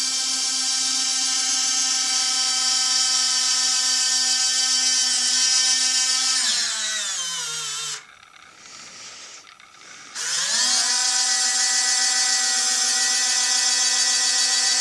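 A pair of heavy-duty servoless electric landing-gear retract units with metal gearing, driven from a servo tester. Their small geared motors whine steadily as the legs fold up, then the pitch sinks and they stop about eight seconds in. After a pause of about two seconds the motors start again, rising to a steady whine as the legs swing back down.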